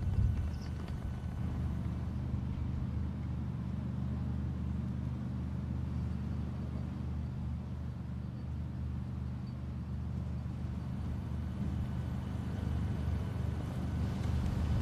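A steady low hum over outdoor background noise, with no voices.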